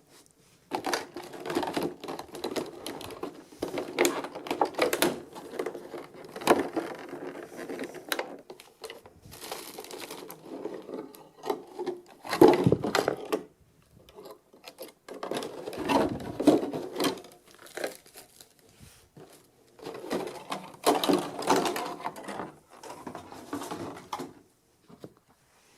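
Figure packaging being handled and opened: plastic and cardboard rustling and crinkling, mixed with small clicks and knocks, in several bursts separated by short pauses. The sharpest knock comes about halfway through.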